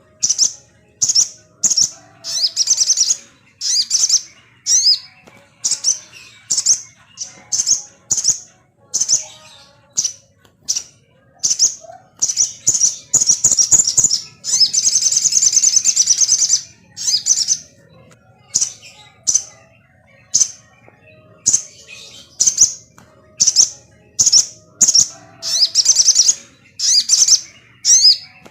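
Sogon bird song: short, high, sharp chirps repeated about twice a second. About 14 seconds in they run together into one longer continuous trill lasting about two seconds, then return to separate chirps.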